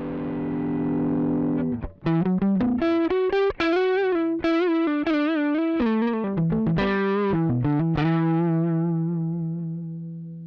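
Electric guitar played through a Joyo American Sound pedal, a Fender Deluxe amp simulator, with light overdrive and no cabinet simulation. A held chord rings out, then a single-note lead phrase with string bends and vibrato, ending on a long note that fades away.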